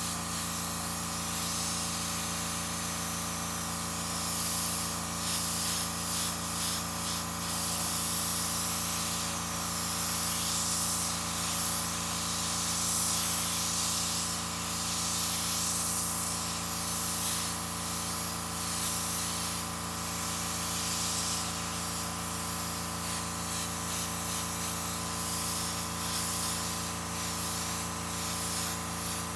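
Airbrush spraying paint in short, uneven hisses as the trigger is worked, over the steady hum of the air compressor feeding it.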